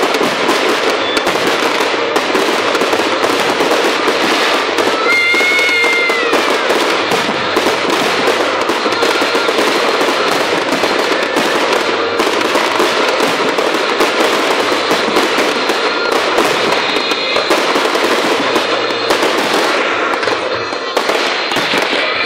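Fireworks display going off: dense, rapid crackling and popping bursts, one on top of another, at a loud and steady level.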